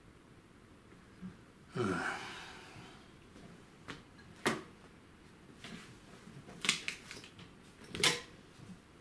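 Handling noise from parts of a resin 3D printer, its metal resin tank among them, being picked up and set down: a breathy rustle about two seconds in, then a handful of short sharp clicks and light knocks, the loudest near the end.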